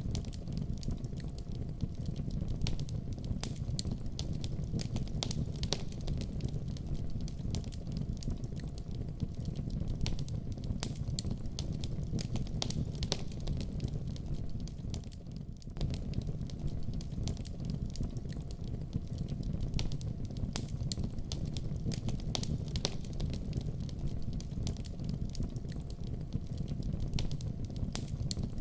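Fire burning in a fireplace, crackling with dense, irregular snaps and pops over a steady low rumble. It goes briefly quieter about halfway through.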